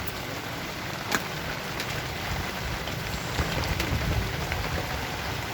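Steady rain pattering, with scattered sharper ticks of single drops.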